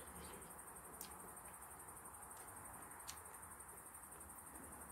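Near silence: faint steady high-pitched insect trilling, with two soft clicks about one and three seconds in.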